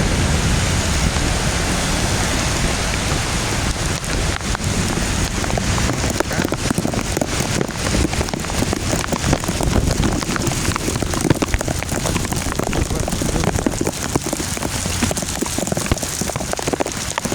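Heavy rain coming down steadily, with many close, sharp drop hits from about four seconds in.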